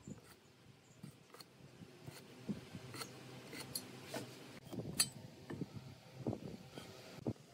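Light clicks and taps of a steel try square being set down and slid along a wooden block, with a pencil scratching marking lines. The taps are irregular, and a few sharper clicks come about three and five seconds in.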